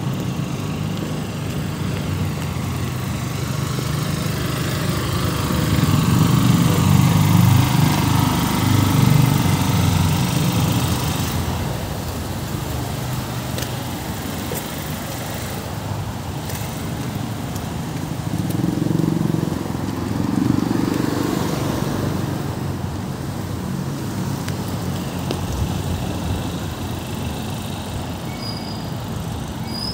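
Road traffic: a steady rumble of vehicles, swelling louder twice as vehicles pass, about six seconds in and again near twenty seconds in.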